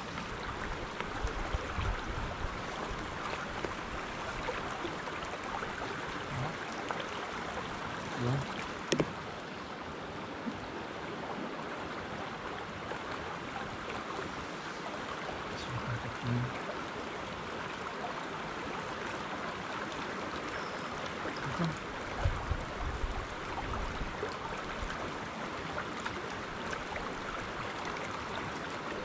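River water rushing steadily over rocks, with a few short, dull low thumps now and then.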